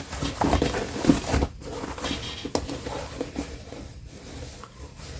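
Denim fabric rustling and scraping in irregular strokes as it is handled and stitched. The strokes are louder in the first half and fainter later.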